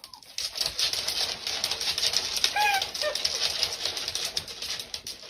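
Rustling and light clattering, with a few short high squeaky calls from a small animal, two of them close together about halfway through.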